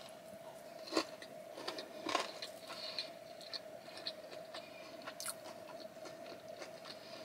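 Close-miked chewing of a poke bowl: soft wet mouth sounds with many small clicks, two louder clicks about one and two seconds in. A faint steady hum runs underneath.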